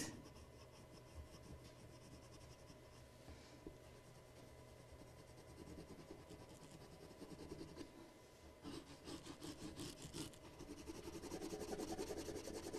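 Coloured pencil scratching and rubbing on paper in short strokes as a drawing is shaded in. It is faint at first and louder in the last few seconds.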